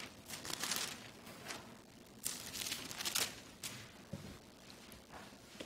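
Bible pages being turned: several short papery swishes over the first three and a half seconds, then a soft knock a little after four seconds in.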